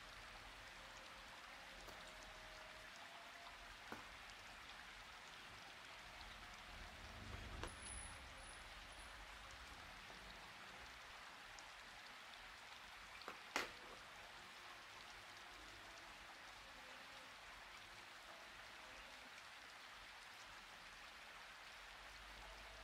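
Near silence: a faint steady hiss, with a few soft taps and one sharper click a little past halfway.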